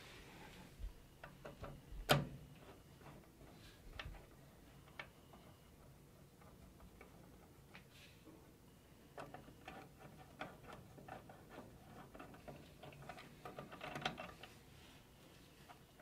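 Faint scattered clicks and ticks of a screwdriver working the screws of a plastic CPU cooler mounting bracket on a motherboard, taking the bracket off. One sharp click comes about two seconds in, and there are small clusters of ticks later on.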